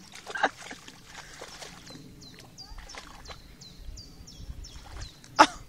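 Water sloshing and splashing as a large black dog wades through shallow lake water. A run of short high chirps repeats through the middle, and a sudden loud sound comes near the end.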